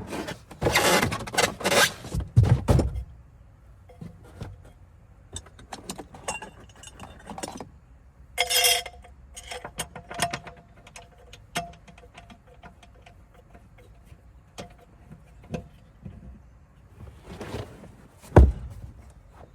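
Clattering and rummaging as gear is packed away in the car's spare-tire well and the floor cover is put back, followed by scattered clicks and one sharp thump near the end.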